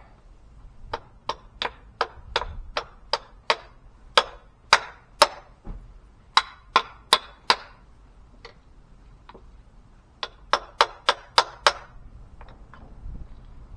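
Lump hammer striking a steel driver against the rusted, seized securing pin in a CAT 308C excavator's track master pin: runs of sharp, ringing metal-on-metal blows, about two to three a second, with a pause of a couple of seconds before a last quick run. The pin is not coming out; the blows are only spreading its end.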